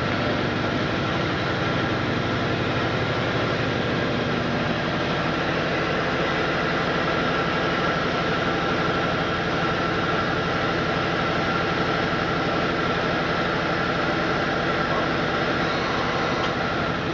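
Hardinge CHNC I CNC chucker lathe running under power: a steady machine hum with a constant high whine.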